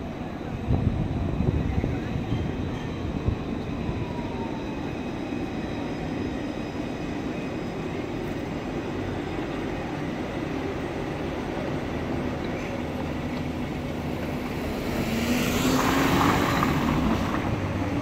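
City street traffic noise, with a few low thumps early on. Near the end a vehicle passes close, its low engine note rising as the noise swells and then fades.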